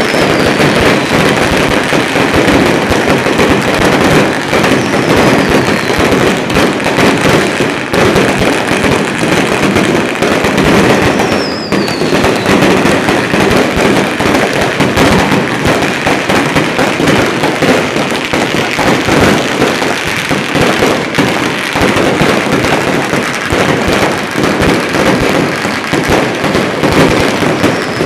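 Long strings of firecrackers going off in a continuous, dense crackle of rapid bangs, with a few faint falling whistles high above it.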